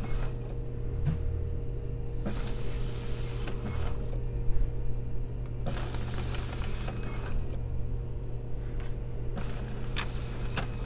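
Fujitsu fi-6130 sheet-fed document scanner feeding pages through its rollers one after another: a whirring rush of about a second and a half for each sheet, about every three and a half seconds, three sheets in all.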